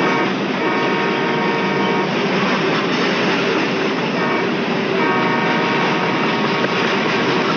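A locomotive air horn sounds two blasts, about a second in and about five seconds in, over the steady rumble of a passing train.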